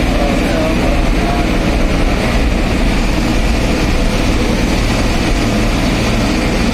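Vehicle engine running steadily under way, with tyre and road noise, heard from inside the cab.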